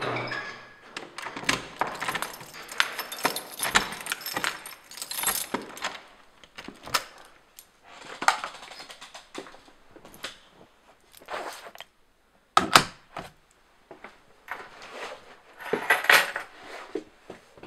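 Small hard objects being handled, jangling and clinking in quick bursts, dense for the first six seconds and then in separate bursts, with one sharp knock about two-thirds of the way through.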